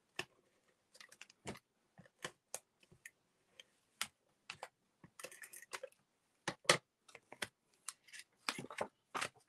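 Handheld adhesive tape runner drawn across the back of a cardstock panel: a string of irregular sharp clicks and short rasps, with paper being handled and set down.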